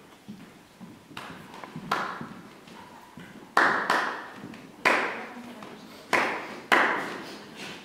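Hand claps with an echo of a large, hard-walled room. A couple of softer taps come first, then four loud claps about a second apart in the second half.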